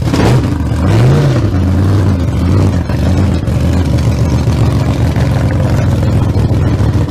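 A vehicle engine blipped once about a second in, then idling steadily.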